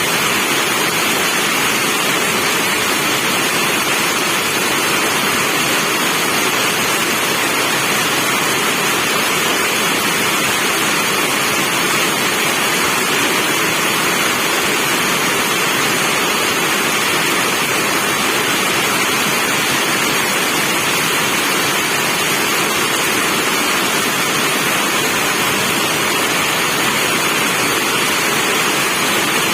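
Steady rain, an even hiss with no breaks or separate drops standing out.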